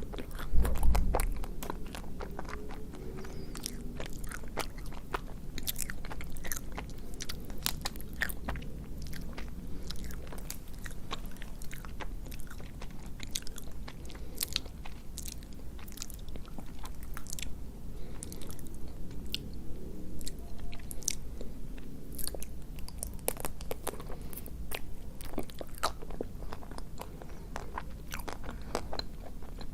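Close-miked eating: biting and crunching through the chocolate shell of an ice cream bar and chewing, with many sharp mouth clicks. A loud low thump comes about a second in.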